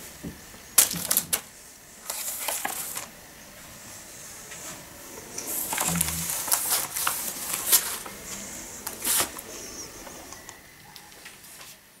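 A folded sheet of paper rustling and crackling as it is handled and laid down, in irregular spells with a few sharp clicks.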